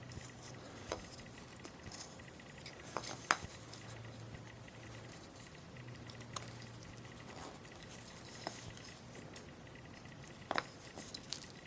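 Hand carving on wood: light scraping of a blade shaving the wood, with scattered small clicks and ticks, the sharpest about three seconds in and again near the end.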